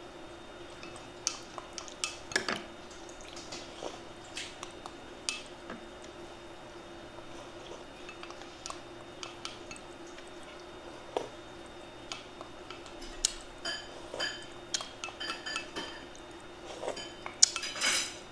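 Eating utensils clinking and tapping against ceramic bowls and dishes during a meal, a scatter of short sharp clinks with a few ringing ones, busier near the end, over a faint steady hum.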